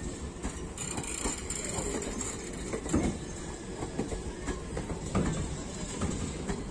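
Indian Railways sleeper-class passenger coaches rolling slowly past, with a steady rumble and repeated knocks of wheels over rail joints and points.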